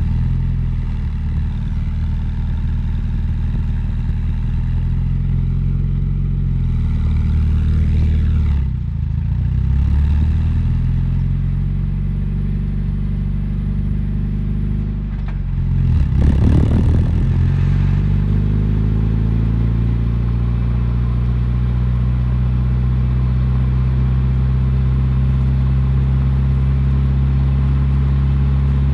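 A 1991 Mazda Miata's 1.6-litre inline-four running through a Borla cat-back exhaust, heard at the tailpipe as the car drives. The engine note rises and dips twice, about 8 and 16 seconds in, loudest the second time, then holds steady.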